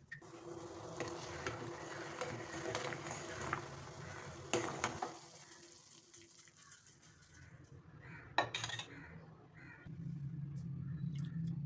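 A spoon stirring and scraping in a cooking pan on the stove, with a hissing sizzle from the pan that fades after about five seconds; a sharper clink of metal comes near the middle.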